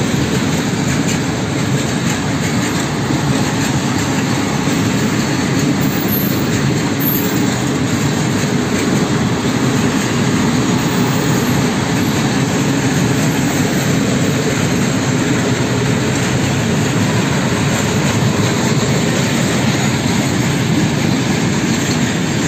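Freight train of empty open coal wagons rolling past on the rails: a loud, steady noise of wheels running over the track.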